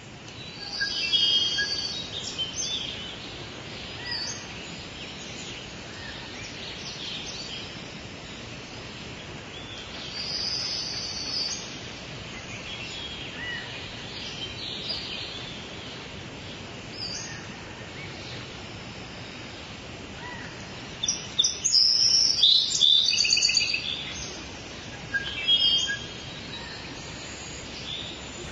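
Wild birds calling and chirping in several short bouts, loudest in a flurry of calls about three-quarters of the way through, over a steady background hiss.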